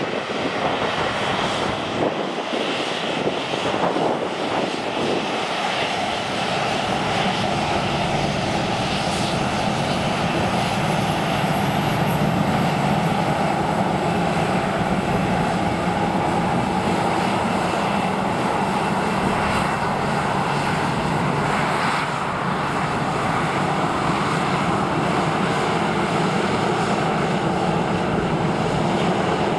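Boeing 737-700's CFM56-7B turbofan engines at taxi power as the airliner rolls past: a steady jet roar with a thin high whine that rises a little in pitch about ten seconds in, then holds.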